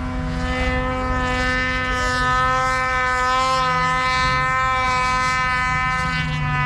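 Snowmobile engine idling with a steady, even engine note that holds one pitch throughout.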